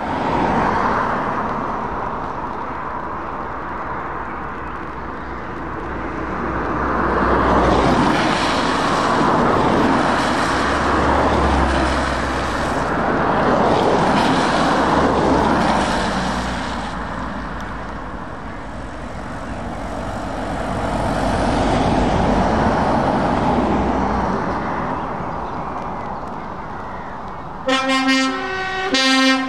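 Road traffic passing on wet tarmac: cars, vans and Volvo FH trucks, with tyre hiss and engine noise swelling and fading as each vehicle goes by. Near the end a truck horn with several tones at once sounds in short repeated blasts.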